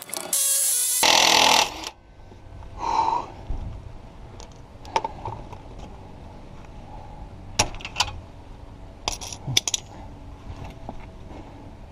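Aerosol spray can hissing for about a second and a half near the start, with a shorter burst a second later. Then scattered sharp metallic clinks of hand wrenches working on the car's outer tie rod end.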